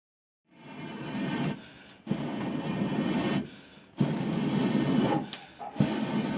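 Rhythmic rasping strokes, each about a second and a half long, repeating with brief pauses between them after a sudden start.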